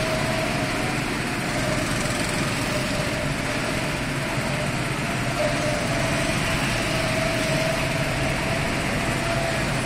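Small go-kart engines running as karts lap the track: a steady engine drone with a thin whine that wavers slightly in pitch.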